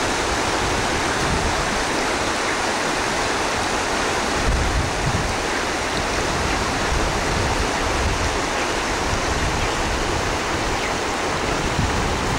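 Fast-flowing river water rushing and splashing over rocks, a steady continuous wash.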